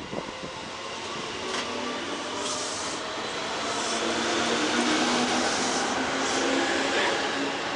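JR 205 series electric commuter train accelerating out of a station alongside the platform, its motors and wheels humming and rumbling and growing louder as it gathers speed, with a few knocks near the start.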